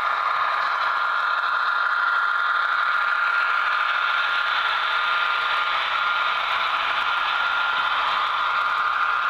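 HO-scale model freight train rolling past close up: a steady rattle of small wheels over the track, with a constant high whine.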